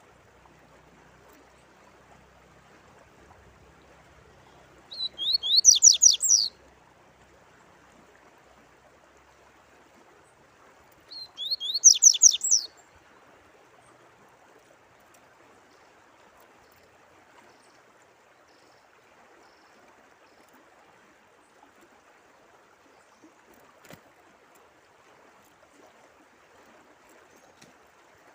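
A songbird sings two short phrases, each about a second and a half of rapid, sharply falling notes, the second about six seconds after the first. Between them a steady trickle of running water carries on.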